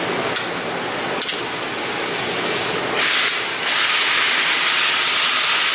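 Steady hissing noise that gets much louder and higher about three seconds in and then holds steady, with two light clicks in the first second and a half.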